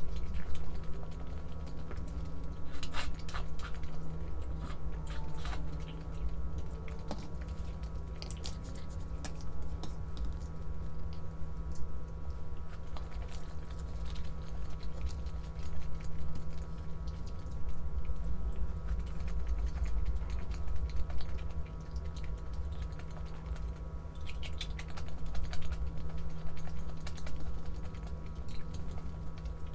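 Scattered light clicks and taps over a steady low hum.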